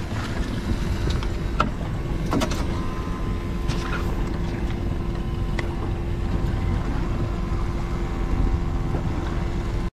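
Steady low rumble and hum of a boat motor running, with a few light clicks.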